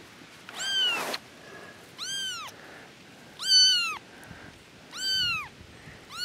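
Three-week-old kitten meowing repeatedly, a high-pitched call about every second and a half, each one rising and then falling in pitch.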